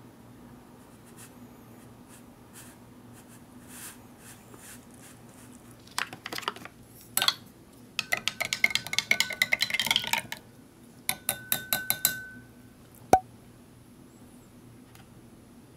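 A spoon stirring a drink in a drinking glass, clinking rapidly against the glass in two spells starting about six seconds in, the glass ringing briefly. Near the end comes one sharp knock, the glass set down on a plastic tray.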